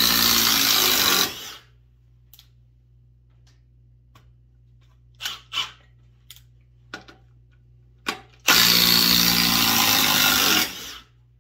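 Milwaukee M18 Fuel Gen 3 cordless impact driver hammering a long screw in stacked lumber. It cuts off about a second and a half in. A few faint handling clicks follow, and it runs again for about two seconds near the end.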